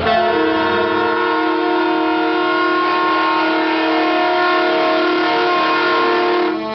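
Semi truck air horn sounding one long blast of several notes together as a chord. It is held steady for about six and a half seconds and cuts off near the end.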